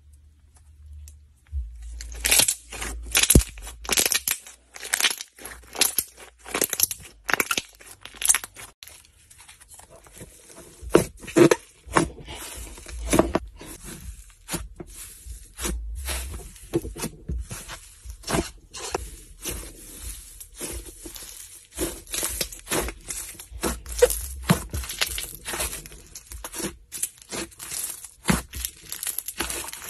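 Hands squeezing, stretching and kneading soft slime: an irregular run of sticky crackles, pops and squishes, starting about two seconds in.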